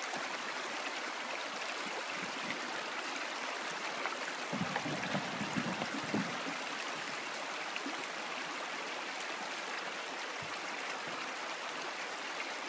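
Shallow river running over stones in a riffle: a steady rushing, babbling of water.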